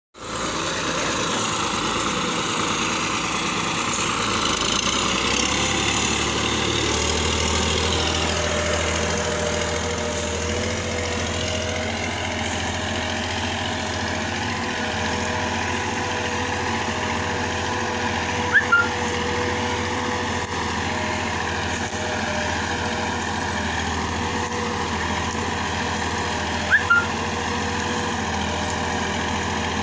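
Tractor engine running steadily, with a constant drone. Two brief sharp double sounds stand out, once just past halfway and again near the end.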